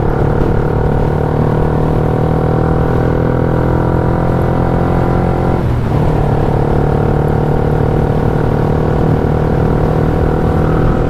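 Yamaha Y15ZR motorcycle's 150 cc single-cylinder four-stroke engine running steadily on the move. Its pitch eases slowly down, dips briefly about halfway and picks back up. The engine is freshly rebuilt with a cast-iron cylinder block and is being ridden gently.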